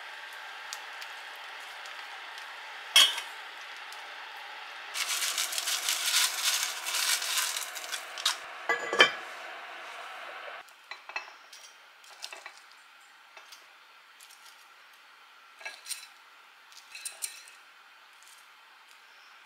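A cast-iron pot and its lid being handled: a sharp metal clank about three seconds in, then a few seconds of quick scraping and clatter of a utensil in the pot, and a heavy clank just before the halfway mark as the lid goes back on. After that come scattered light clinks of chopsticks against a wire cooling rack.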